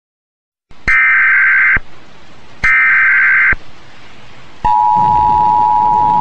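Emergency Alert System broadcast signal announcing a tornado warning. Two loud bursts of digital data tones (the SAME header), each just under a second long, are followed about four and a half seconds in by the steady two-tone attention signal.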